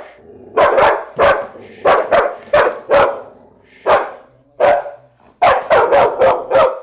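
Young Australian shepherd puppy barking over and over, more than a dozen sharp barks in quick runs, densest near the end. It is suspicious, fearful barking at an unfamiliar object, a padded bite sleeve held out in front of it.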